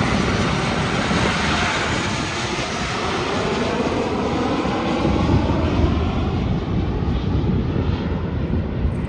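Southwest Boeing 737 on final approach passing low overhead: steady jet engine noise whose whine slides down in pitch as the plane passes and moves away, the high hiss fading over the last few seconds.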